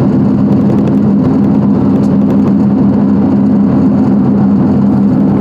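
Pickup truck driving at a steady speed: the engine runs with a constant low drone under road noise.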